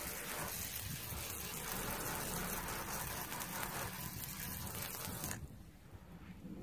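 Steady rushing hiss of running or spraying water, which cuts off suddenly a little after five seconds in.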